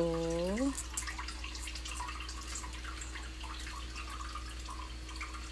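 Pot of pork back-bone stew bubbling at the boil: a steady scatter of small pops and gurgles from the broth.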